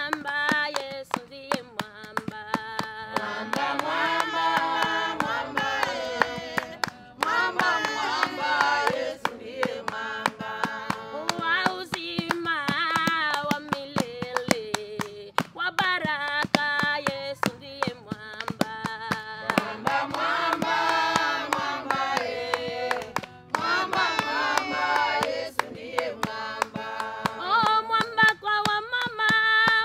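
A group of mostly women's voices singing a Swahili hymn together in phrases, with hand-clapping in time all through.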